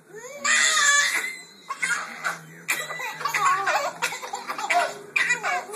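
Baby girls laughing hard in repeated bursts of high-pitched giggles and belly laughs.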